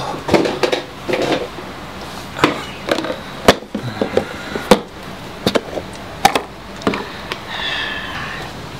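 Clicks, knocks and taps of a green plastic food container being handled on a table and its snap lid pried open, with a brief high squeak near the end.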